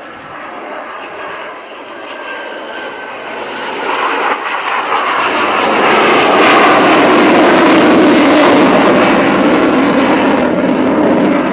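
Panavia Tornado's twin RB199 turbofans in afterburner, the jet noise building to its loudest about six to nine seconds in as the jet passes and pulls up, then starting to fade near the end.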